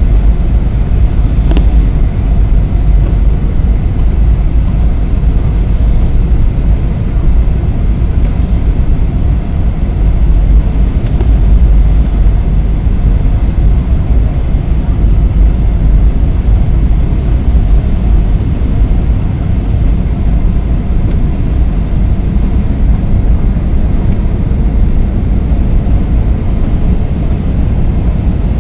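Steady, loud cabin noise inside a Boeing 737-800 on final approach: a deep rumble of airflow and engines, with faint high whining tones above it.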